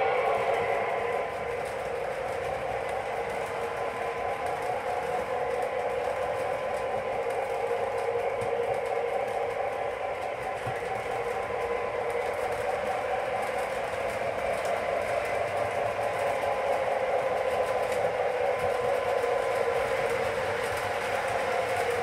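O-scale model train of Lionel intermodal flatcars carrying trailers rolling steadily along the track: a continuous clattering whir of wheels and running gear.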